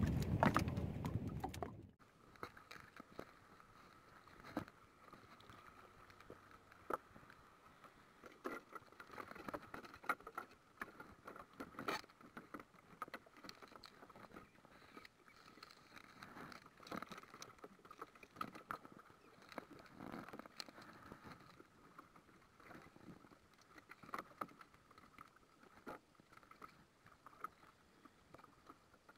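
A louder rushing noise cuts off abruptly about two seconds in. After it, faint water lapping against a small wooden boat's hull, with scattered small knocks and clicks.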